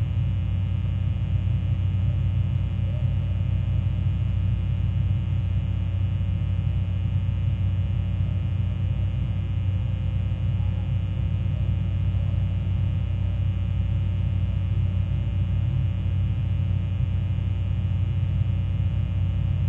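Fog horn sounding one steady, low note with many overtones, unbroken.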